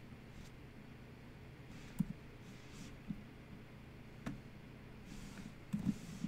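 A few scattered clicks of a computer keyboard and mouse over faint room noise: one sharp click about two seconds in, another just past four seconds, and a quick pair near the end.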